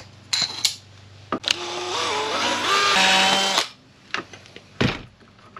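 Cordless drill with a 1/4-inch bit drilling a hole through a black plastic snowmobile ski for about two seconds, its pitch shifting in steps as it cuts. Short handling clicks and knocks come before and after it.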